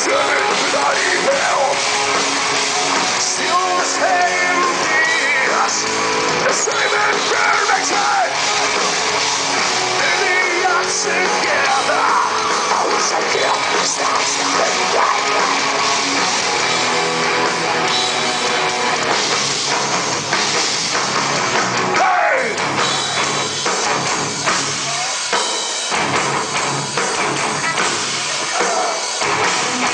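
A heavy metal band playing live, with a singer's vocals over the band.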